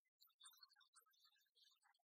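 Near silence, with only faint scattered high-pitched specks of sound.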